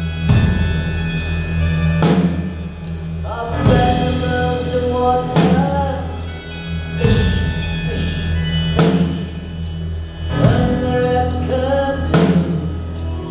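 Live band playing a slow song. The drum kit lands a heavy hit about every 1.7 seconds over sustained low keyboard notes and acoustic guitar.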